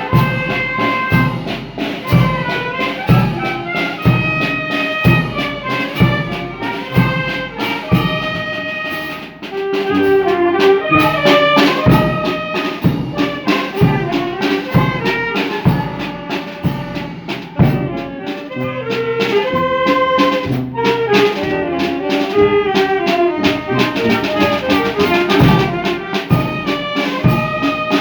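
A wind band playing a tune: brass instruments carry the melody over a steady drum beat of about two strokes a second.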